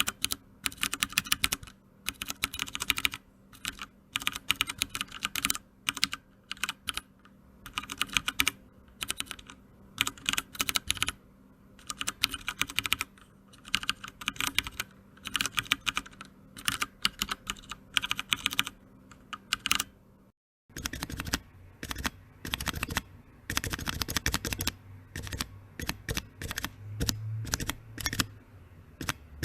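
Typing on a mechanical keyboard with Cherry MX switches: rapid key clicks and clacks in bursts of a second or two. A brief silent break comes about two-thirds through, and the typing then resumes over a low hum, as a new recording starts.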